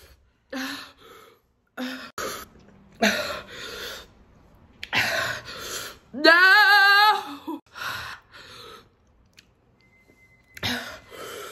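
A woman's short, sharp breaths and gasps, over and over, with one long wavering whimpering cry about six seconds in: a pained reaction to the burn of very spicy noodles.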